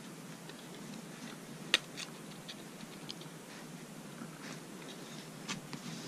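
Small clicks and ticks of a DDR3 laptop memory stick being pressed into a MacBook Pro's RAM slot, with one sharp snap nearly two seconds in as the module locks into its side clips.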